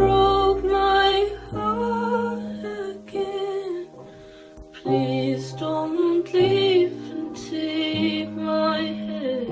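Song playing: a sung vocal melody over sustained low bass notes, dropping to a quieter gap about four seconds in before the voice comes back.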